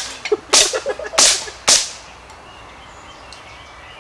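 Quick string of CO2 airgun shots, about two a second, smashing glass-ball targets. The shots stop about two seconds in.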